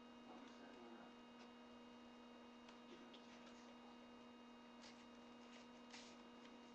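Near silence: a steady low electrical hum, with a few faint clicks and light handling noises near the end.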